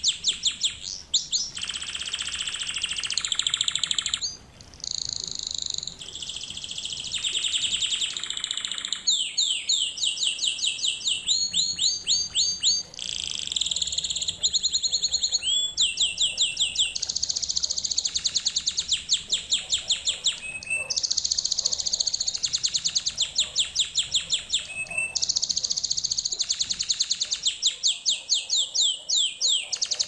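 Canary singing: a continuous song of fast trills, each a rapid run of repeated high notes held for a second or two before switching to a different trill, with a brief break about four seconds in.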